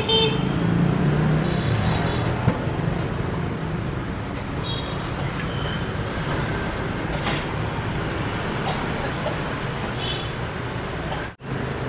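Steady street traffic hum, with a few short, light clinks of utensils against crockery.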